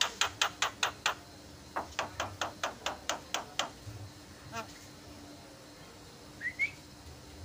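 Javan myna giving two fast runs of dry clicking notes, about seven a second, then a short rising whistled chirp near the end.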